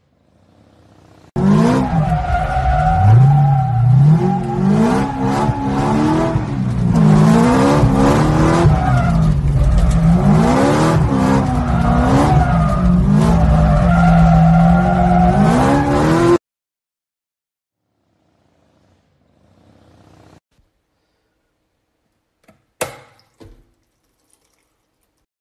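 Car engine revving up and down again and again while the car is drifted, heard from inside the cabin. It cuts off suddenly after about fifteen seconds, and near the end there is only a brief, sharp sound.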